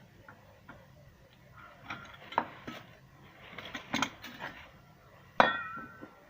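Metal tools and fittings being handled: scattered clicks and clinks, a burst of clatter, then one sharp metallic clang about five seconds in that rings on with a wavering tone.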